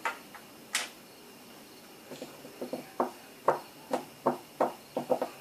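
Short sharp taps and clicks: one a little under a second in, then a quick, fairly even run of about three a second from about three seconds in.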